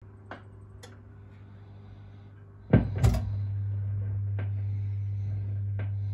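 Jukebox record-changing mechanism at work: a few light clicks, then a heavy double clunk about three seconds in as the record is set down on the turntable and the tone arm comes down. After it a steady low motor hum, with a couple of soft clicks.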